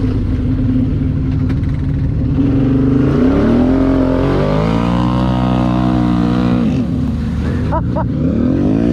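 Off-road vehicle engine revving up, holding its speed, easing off and then revving up again.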